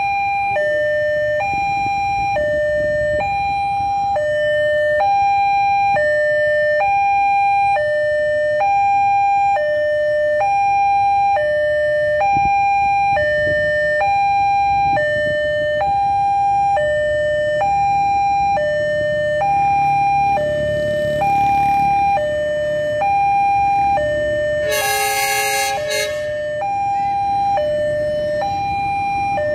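Railway level-crossing warning alarm: an electronic two-tone chime alternating steadily between a higher and a lower note, with road traffic rumbling underneath. About 25 seconds in, a loud horn blasts once for about a second.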